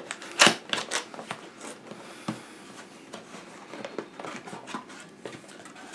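Cardboard camcorder box being opened by hand: a quick run of sharp scrapes and clicks from the flaps and lid in the first two seconds, one more a little later, then soft rustling of cardboard and paper.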